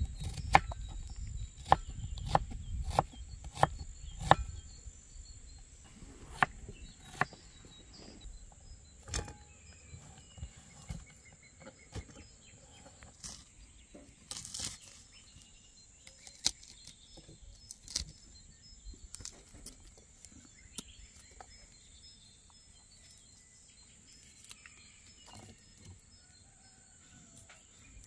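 A kitchen knife slicing through onion onto a wooden cutting board, about two strokes a second for the first few seconds. After that come sparse clicks and taps as garlic cloves are broken apart and peeled, with birds chirping in the background.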